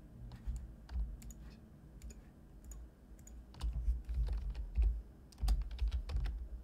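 Computer keyboard being typed on irregularly, keys clicking in scattered taps with busier runs from about three and a half seconds in, and dull low knocks beneath the keystrokes.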